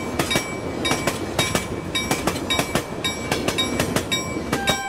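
Train wheels clicking over rail joints in an uneven clickety-clack, the clicks often coming in pairs over a steady rumble. Near the end, a steady ringing tone begins.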